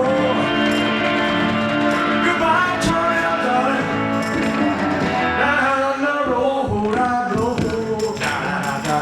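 Live rock and roll band playing, with guitar and a tambourine, and a male voice singing over it.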